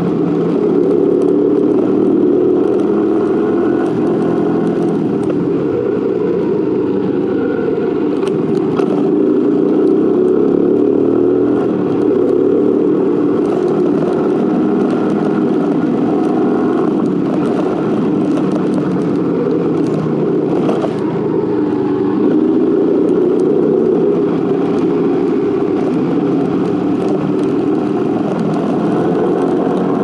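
Motorcycle engine running steadily while being ridden along a road.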